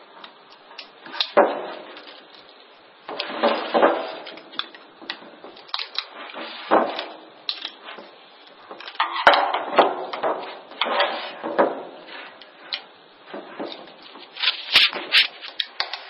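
Screwdriver prying at a microwave oven transformer's winding and core, wedging the winding loose: irregular scraping and clicking of the tip against metal, with a few sharper clicks, one about nine seconds in and more near the end.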